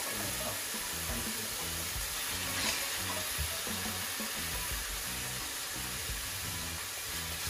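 Green seasoning frying in hot peanut and sesame oil in a pan, with a steady sizzle.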